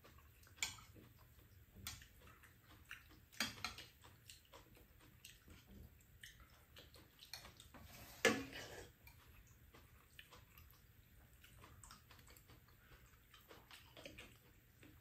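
Quiet eating at a table: chopsticks clicking against bowls and soft wet sounds of noodles in cold broth being picked up and eaten, with one louder slurp about eight seconds in.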